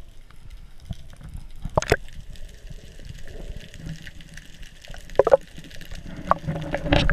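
Water moving and gurgling around a camera held underwater, broken by several sharp clicks.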